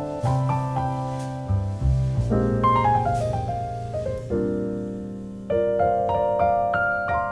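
Background piano music: slow, gentle chords and single notes, each struck and left to ring and fade.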